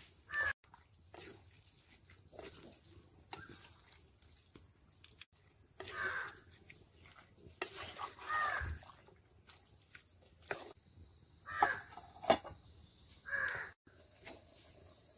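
Crows cawing now and then, with two sharp clinks about twelve seconds in over a faint steady hiss.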